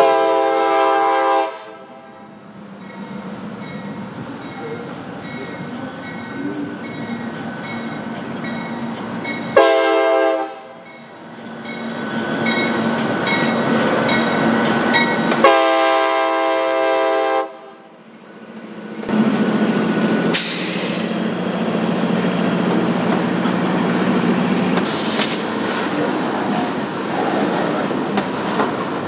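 Freight locomotive CSX 153 sounding its air horn three times, a short blast in the middle, as it nears a grade crossing. After the last blast the locomotive runs past with a steady engine hum, followed by the intermodal cars rolling by with wheel clatter and a few sharp knocks.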